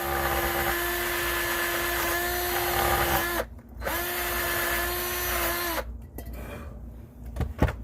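Power-driven wire wheel spinning against a brake caliper bracket, scrubbing dirt off it. It runs steadily for about three and a half seconds, stops briefly, then runs for about two more seconds and stops, followed by a few faint clicks.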